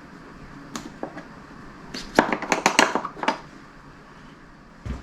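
Light clicks and taps of a trunk latch and its screws being handled and fitted into a motorcycle trunk lid: a couple of single clicks about a second in, then a quick flurry of them a second later.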